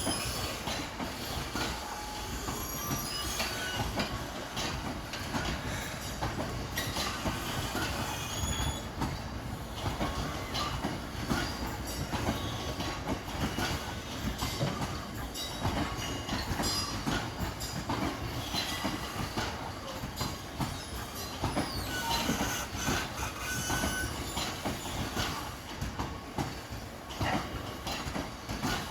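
A rake of IOA bogie ballast wagons rolling past on an engineering train, wheels clicking over the rail joints with short, high wheel squeals throughout.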